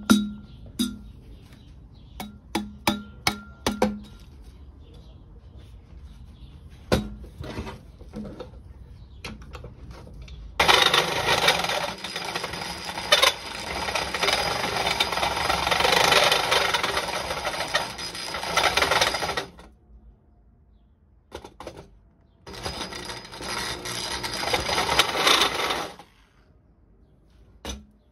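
Handheld electric drill boring out a welded-on flange on an aluminium turbo charge pipe, running in two long bursts of about nine and three and a half seconds as the bit cuts the metal. Before that, a series of light knocks and clicks.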